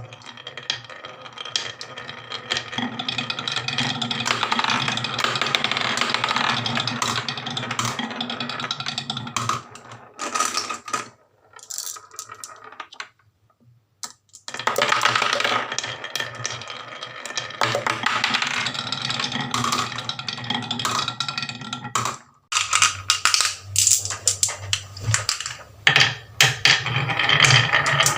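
Marbles rolling and clattering down a wooden HABA marble run, a dense stream of small clicks and rattles that stops briefly twice.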